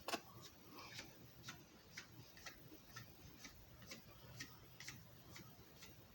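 Faint, steady ticking at about two ticks a second, with one louder click at the very start.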